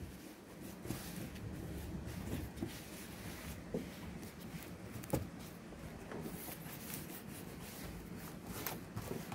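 Gloved hands rubbing and pressing on sheet-metal roofing around a chimney pipe: a faint, continuous scuffing and rustling with a few light ticks.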